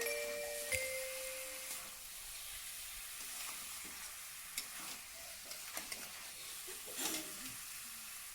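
Marinated duck meat frying in spice paste in a pan with a soft, steady sizzle, while a spoon stirring it clicks against the pan now and then. A few music chime notes fade out in the first two seconds.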